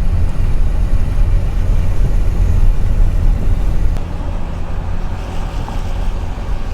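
Steady low rumble of a car driving: engine and road noise, easing off a little about four seconds in.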